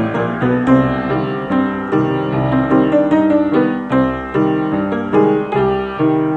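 Piano playing a classical-style piece in C minor: a steady run of quickly struck notes and chords, with accents about every half second.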